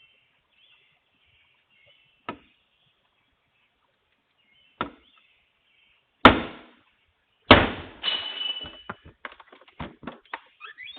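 A glass door being struck four times, the blows getting louder, the last two hardest. After the fourth blow comes a crash and a run of small clattering clicks as the glass breaks and shards fall.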